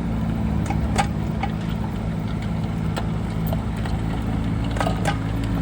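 Bobcat E10 mini excavator's small diesel engine running steadily, with a few sharp metallic clanks from the machine about a second in, about three seconds in and near the end.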